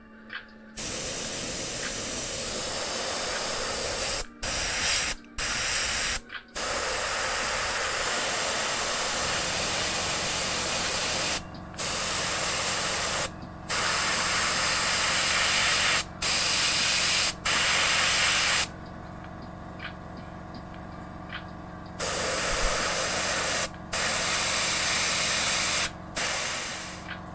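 Airbrush spraying thinned acrylic paint in about a dozen bursts of one to five seconds, stopping briefly between them as the trigger is let go, with a longer pause about two-thirds of the way through.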